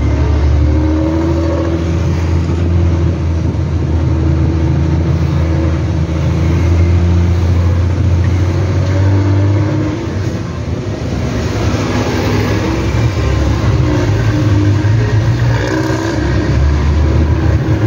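Diesel engine and growling 'ngorok' exhaust of a Nissan Diesel CB87L bus under way, heard from the rear seat inside the cabin. The engine pulls steadily, drops briefly about ten seconds in, then pulls again.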